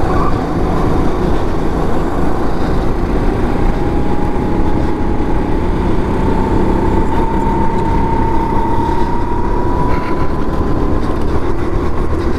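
Racing kart running at speed, heard from the driver's seat: a loud, steady drone with a thin whine that slowly climbs in pitch through most of the stretch as the kart keeps pulling.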